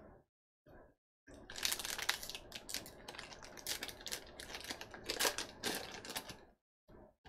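A Topps Allen & Ginter baseball card pack wrapper being torn open and crinkled by hand: a crackling rustle full of sharp clicks that starts about a second in and lasts about five seconds.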